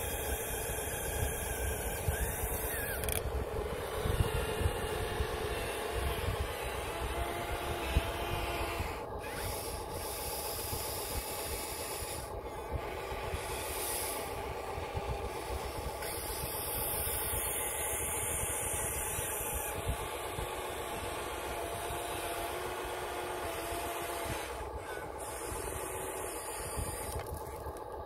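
Remote-controlled scale model excavator at work, its small electric motors whining with a pitch that rises and falls as the arm and body move, over a steady hiss.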